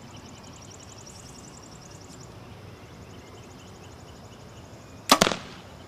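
A 2012 Strother Rush compound bow, stock with no string silencers or limb dampeners, being shot: a sharp snap about five seconds in, followed a split second later by a second smack, the release and then the arrow hitting the target.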